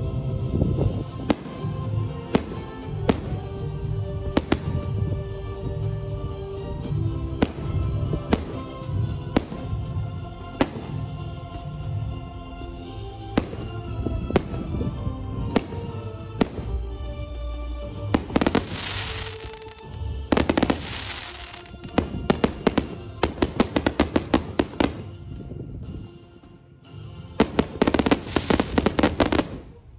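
Fireworks going off over music. At first there are single bangs. From a little past halfway come quick runs of crackling bangs in several clusters, the loudest part.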